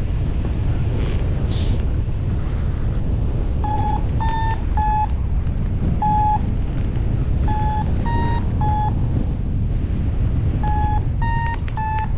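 Paragliding variometer beeping short, clear tones in little runs of about three, some beeps a touch higher than others: the lift tone of a glider in rising air. A steady rush of wind on the microphone runs underneath.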